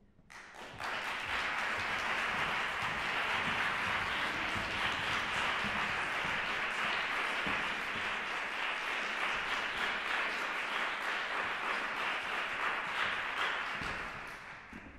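Audience applauding, starting suddenly and steady throughout, then dying away near the end.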